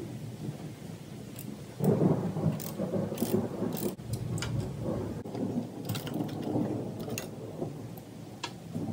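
Socket ratchet on a long extension loosening bolts on an engine's intake manifold: scattered ratchet clicks over a rough, rumbling clatter that grows louder about two seconds in.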